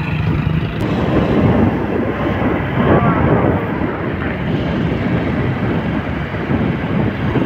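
Steady road rumble and wind noise of a vehicle driving along a road, with wind buffeting the microphone.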